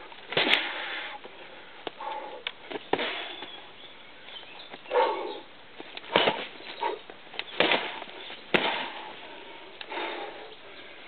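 Kicks landing on hanging training bags: a string of irregular thuds and slaps, several seconds apart at first and then closer together, with loud breaths between the strikes.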